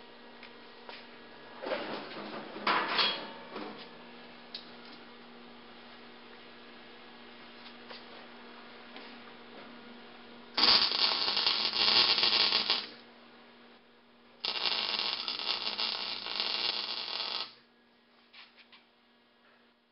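MIG welder arc welding steel: two loud runs of crackling arc, about two and three seconds long, in the second half. A steady low hum from the welder runs underneath, with a few knocks of handling earlier on.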